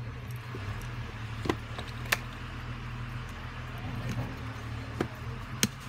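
Small sharp clicks of a precision screwdriver and metal parts as screws are driven into a smartphone's mid-frame: four clicks, two about a second and a half in and two near the end, over a steady low hum.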